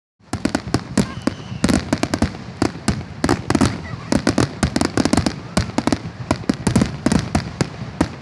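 Fireworks going off in a rapid, irregular run of sharp bangs and cracks, several a second, without a pause.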